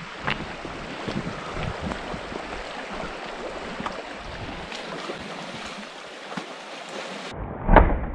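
Fast muddy stream rushing over gravel, with wind on the microphone and scattered small clicks. Near the end a single loud shotgun blast as a wild boar splashes across the stream.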